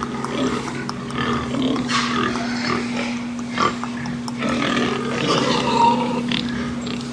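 Pigs grunting on and off over a steady low hum.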